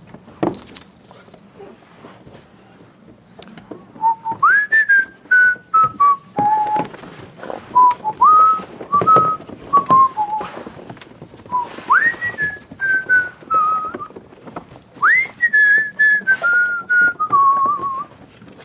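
A person whistling a tune in four phrases, most starting with a quick upward slide and then stepping down through several held notes. Scattered knocks are heard between the phrases.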